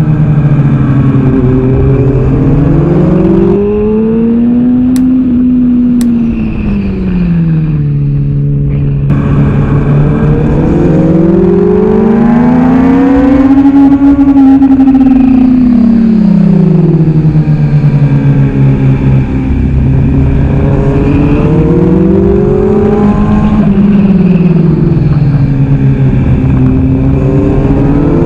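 Kawasaki ZX-6R's inline-four engine at racing speed, heard from onboard with wind rushing past. The engine note rises and falls smoothly in pitch about four times as the throttle opens on the straights and closes for the corners, highest about halfway through.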